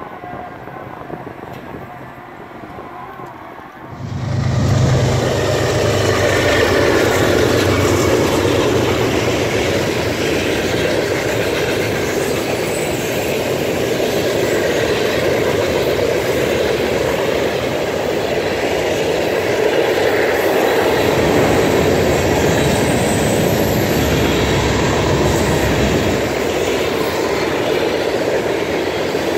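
A train passing close by: the diesel locomotive arrives suddenly about four seconds in with a deep engine rumble, then the cars roll past in a steady loud rumble of wheels on rail.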